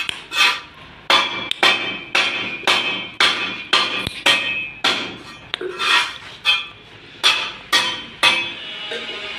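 Regular sharp strikes with a ringing tail, about two a second, keeping an even beat.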